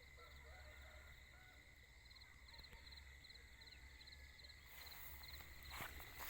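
Faint outdoor morning ambience: high chirps from insects in the fields, repeated in short quick groups, over a steady high whine. Near the end a rustle and a few clicks come in.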